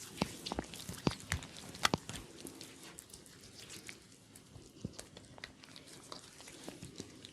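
Hands massaging a person's head, fingers rubbing through hair and scalp with a crackle of small sharp clicks. A cluster of louder clicks comes in the first two seconds, then they grow sparser.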